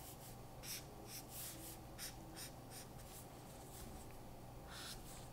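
Prismacolor marker nib dragged across drawing paper in short quick strokes, faint scratchy swishes: a run of them in the first half and another near the end.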